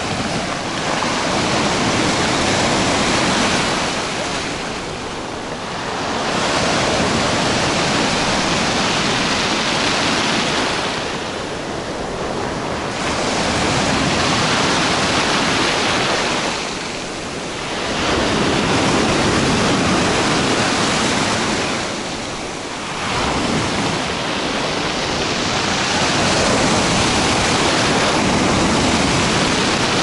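Sea waves breaking and washing up over a pebble beach, each surge running several seconds before a short lull, about every five or six seconds.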